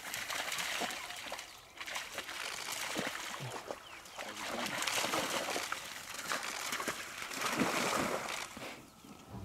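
African wild dogs splashing through a shallow muddy pool as they chase and tumble, in several bursts of sloshing water.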